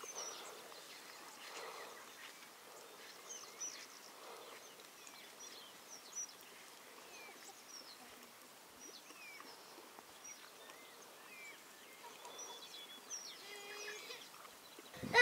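Quiet outdoor ambience with scattered short bird chirps, a quicker run of chirps near the end.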